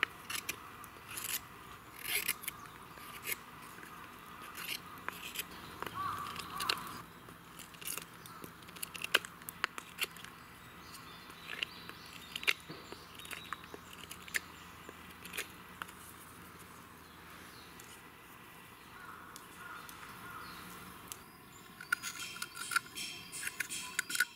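A small knife whittling a wooden stick into a spoon, with short, irregular scraping cuts as shavings come off, about one a second and quicker near the end.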